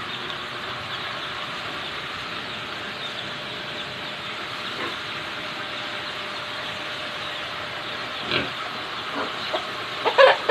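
Farmyard sounds around a pigsty: a steady hiss, then a few short farm-animal calls near the end, the loudest cluster about ten seconds in.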